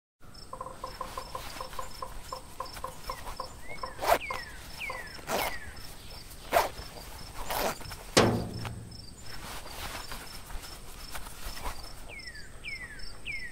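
Forest ambience of birds calling: short falling chirps and a pulsing call during the first four seconds. Several sharp hits cut across it, the strongest about eight seconds in with a low hum trailing after it.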